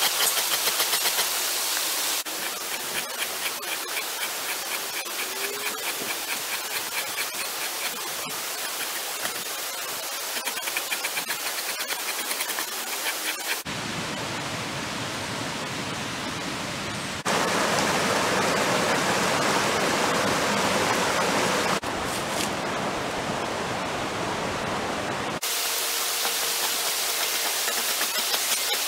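Creek water rushing, with the rasping strokes of a two-handled metal scraper pushed down a lye-soaked deer hide on a fleshing beam, stripping the hair, in the first half and again near the end. The water is loudest in the middle stretch.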